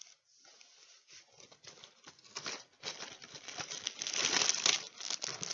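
Packaging of a LEGO Bionicle set being handled and opened: the cardboard box and plastic bags of parts crinkle and rustle in quick, irregular crackles that grow louder about halfway through.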